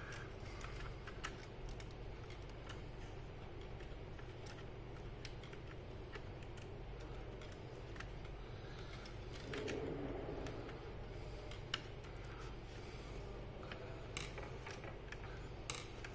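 Scattered small clicks and taps of plastic laptop parts and flex-cable connectors being handled and seated during reassembly of an HP G6 laptop, with a short rustle about two-thirds of the way through, over a faint steady hum.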